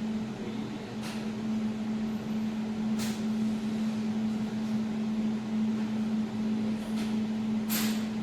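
A 200W desktop laser welding machine with a built-in chiller humming steadily as it starts up before it is ready to weld. A few sharp clicks sound over the hum, the loudest near the end.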